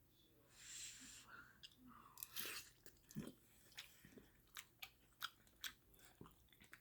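Close-up chewing of soft noodle soup with wet lip smacks: irregular sharp clicks, several a second, after a soft hiss about a second in.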